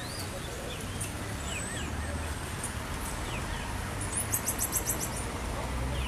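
Marmosets calling to one another with scattered short, high-pitched chirps and whistles that slide down in pitch. A quick run of very high ticks comes about four seconds in, over a low steady rumble.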